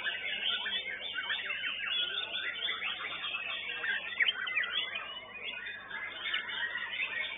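A chorus of white-rumped shamas (murai batu) singing at once: dense, overlapping whistles, chirps and quick rising and falling notes.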